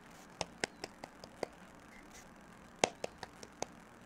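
Light, sharp clicks of long acrylic fingernails tapping against each other, about ten in all, in two quick runs a second or so apart.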